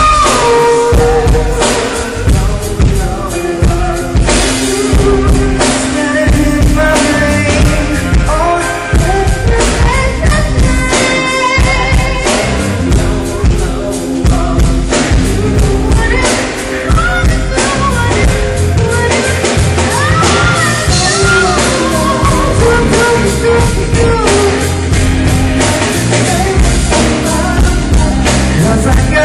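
Live rock band playing a song with a singer, amplified through a PA during a sound check.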